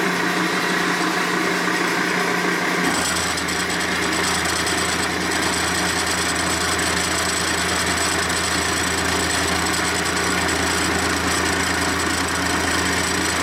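Milling machine cutting a flat on a heat-treated steel tool holder, a steady grinding cut that the machinist says cuts pretty hard. About three seconds in, the sound grows fuller and deeper as the cut takes up.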